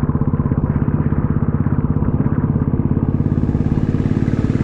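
Motorcycle engine running steadily under way, with a fast even pulse. About three seconds in, a hiss of wind rises on top of it.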